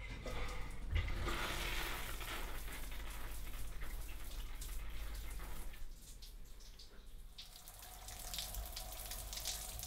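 Shower running, with water spraying and splashing. It is louder for the first six seconds, then drops to a softer patter.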